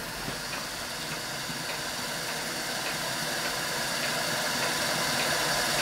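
Scratch-built horizontal Hero engine (aeolipile) spinning freely under steam, a steady hiss of steam escaping from its rotor jets, slowly growing a little louder.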